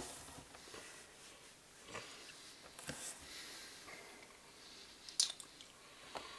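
Faint chewing and breathing sounds from someone struggling to swallow a chewy mouthful, with a few short sniffs; the loudest comes a little after five seconds in.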